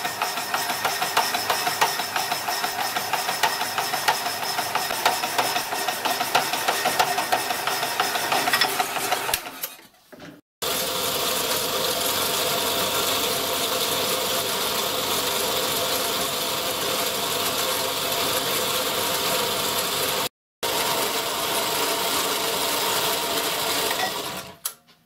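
Power hacksaw running, its blade going back and forth through a rusty round bar held in the vice. It comes as three runs broken by two sudden cuts: the first has a fast, even rattle of strokes, the later two a steadier mechanical running sound.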